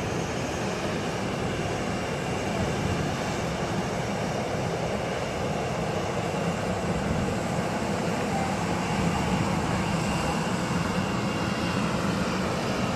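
An airliner's engines running with a steady rushing noise and a faint high whine, growing slightly louder in the second half.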